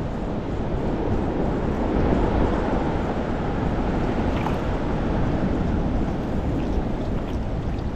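Steady wind noise on the microphone over choppy sea water around a fishing kayak, a constant low rumbling hiss.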